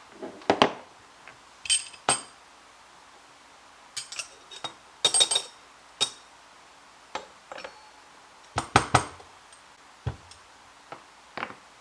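Espresso tools clinking and tapping: a metal dosing funnel and the grinder's dosing cup knock against the portafilter as ground coffee is transferred. It is a series of irregular sharp clinks, a few of them ringing briefly.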